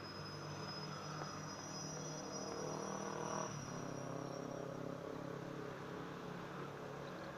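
Stationary SRT diesel railcar's engine idling with a steady hum; the hum shifts about three and a half seconds in. A thin high whine sits over it during the first half.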